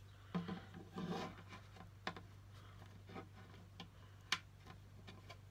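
Faint scattered plastic clicks and light taps from handling a Marvel Wasp action figure with freshly fitted wings and setting it on a wooden table, with one sharper tap about four seconds in. A steady low hum runs underneath.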